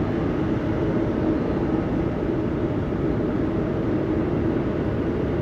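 Steady low rumble with a constant hum, typical of a cruise ship's machinery and ventilation running in port, with wind buffeting the microphone.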